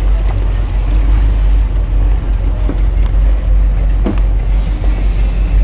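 Motorboat engine running steadily, a constant low rumble under a noisy hiss of wind and water.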